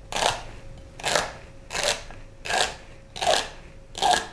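Chef's knife slicing through a bundle of celery stalks and meeting a wooden cutting board: six cuts at an even pace, a little faster than one a second.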